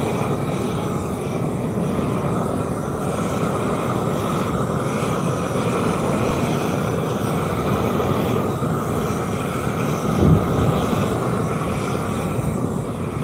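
Steady, dense mechanical rumble of machinery running, with a brief louder thump about ten seconds in.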